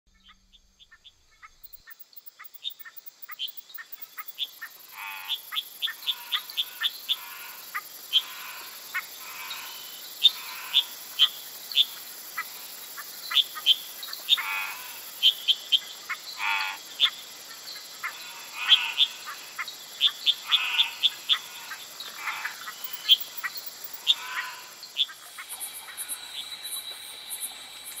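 Tropical forest chorus of frogs, with many short calls repeated over and over above a steady high insect hiss. It fades in over the first few seconds, and near the end the frog calls drop away and a different high insect buzzing takes over.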